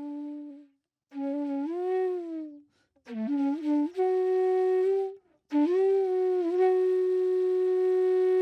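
Background music: a solo flute melody played in short phrases with brief pauses between them and small bends in pitch, settling into one long held note for the last few seconds.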